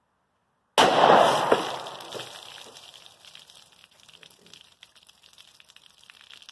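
A single 9mm pistol shot from a short-barrelled Sig Sauer P365XL firing a 124-grain Sig V-Crown hollow point, about a second in, as the round blows apart the first water-filled jug. Water from the burst jug splashes down, and the noise fades over the next couple of seconds.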